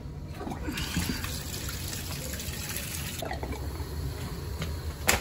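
Steady rushing of water through steam-boiler piping and valves, over a low hum, with one sharp click near the end.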